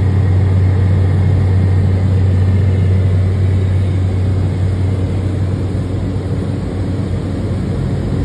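Cessna 208 Caravan's single PT6A turboprop engine and propeller droning steadily in cruise, heard inside the cockpit as a loud, even noise over a strong low hum.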